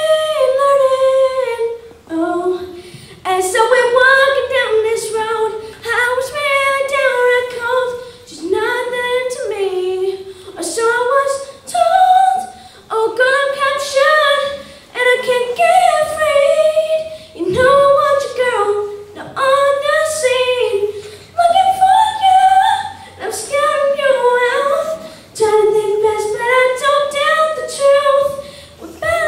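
A boy singing solo into a microphone with no accompaniment, in phrases a second or two long with short breaks between them.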